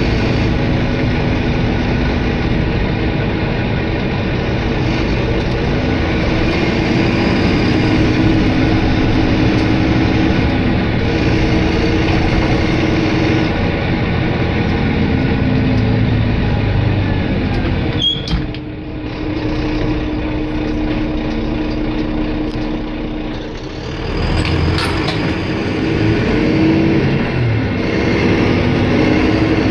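Volvo B9R coach's rear-mounted diesel engine and road noise heard from inside the passenger saloon, running under way. The engine note holds, drops and climbs again as it changes gear, with a sharp click and a short lull about eighteen seconds in and another dip a few seconds later.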